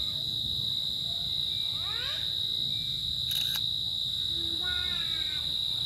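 Steady high-pitched drone of insects with a few fainter pitched calls over it: a rising one about two seconds in and a run of falling notes near the end. There is a short sharp click near the middle.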